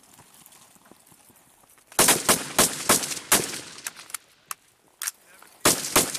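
Live rifle fire: about a dozen sharp shots in quick, irregular succession starting about two seconds in, each with a short echo.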